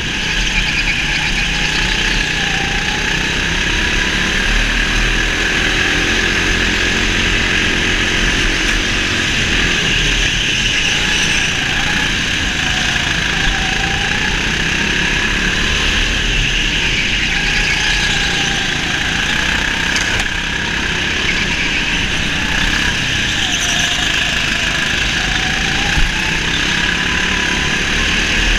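Go-kart engine running hard, its pitch rising and falling again and again as the kart accelerates and lifts off through the corners, over a steady rushing noise. One short sharp knock sounds about two seconds before the end.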